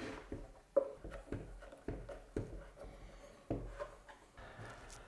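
Hand screwdriver turning a screw through the wooden back wall of a bird box into the camera's mount: a series of soft, irregular clicks and scrapes of tool, screw and wood.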